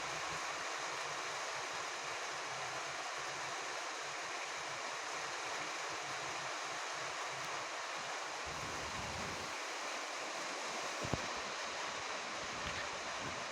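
Steady rain falling on a roof, an even hiss of many drops. There is a brief low rumble a little past the middle and a single sharp tap about eleven seconds in.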